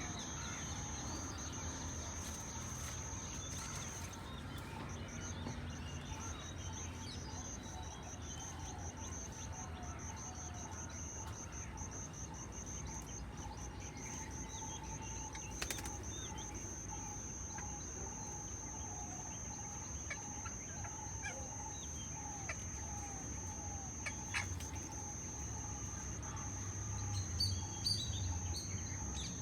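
Garden birds calling and chirping, with a run of repeated short calls in the second half, over a steady high-pitched whine and a low rumble.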